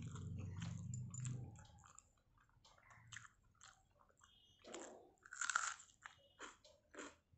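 Close-up mouth sounds of a person eating: chewing at first, then a series of short crisp crunches as she bites into a raw onion, the loudest crunch a little past halfway.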